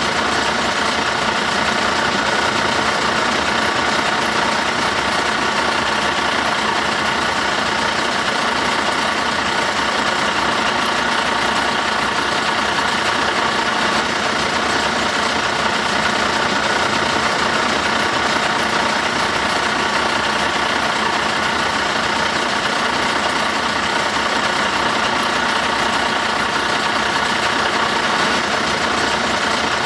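Heavy vehicle's diesel engine idling, a steady, unchanging drone.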